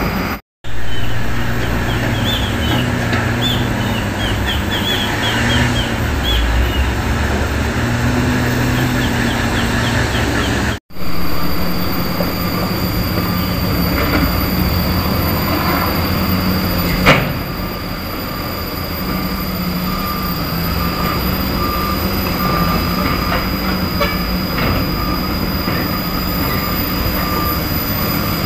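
Diesel engines of Hino dump trucks and a hydraulic excavator running at an earthworks site. There is a single sharp clank a little past halfway, and a reversing alarm beeps steadily through the second half.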